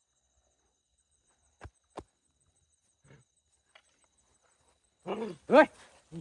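Two sharp clicks or knocks about a second apart, then near the end a person's voice calling out loudly, its pitch rising and falling. A faint high insect trill runs underneath.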